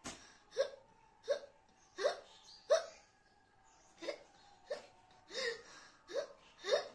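A woman hiccuping over and over: about ten short, sharp hiccups, roughly one every two-thirds of a second, with a brief break a little past the middle. The hiccups come after she ate the Jolo chip, an extremely hot chili chip.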